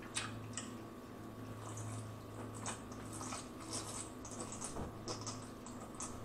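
A person drinking in long gulps from a large glass mug of iced drink, with a scatter of short, wet swallowing and mouth clicks.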